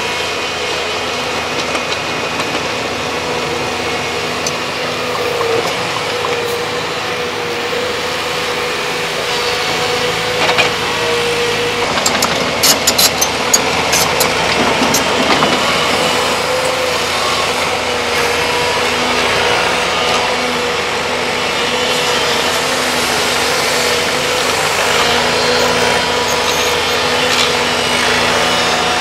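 Volvo excavators' diesel engines running steadily at work, with a steady whine over the engine note. A cluster of sharp knocks comes about halfway through.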